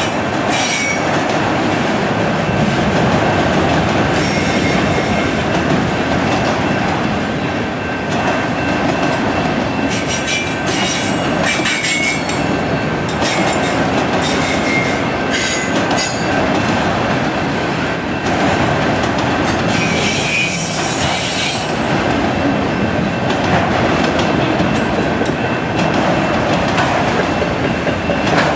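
Canadian National autorack freight train rolling past: a steady rumble and clatter of steel wheels on the rails. High-pitched wheel squeals come and go several times, most strongly around the middle and about two-thirds of the way through.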